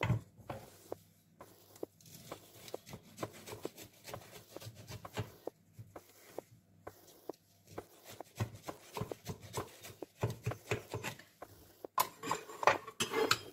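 Knife cutting through the crisp baked pastry crust of a pie, an irregular run of small crackles and crunches.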